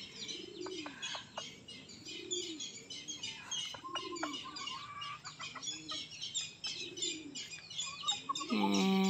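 Rural bird chorus: many small birds chirping, with low, rising-and-falling bird calls repeating roughly every second and a half. About eight and a half seconds in, a loud, steady low-pitched call or drone begins and is the loudest sound.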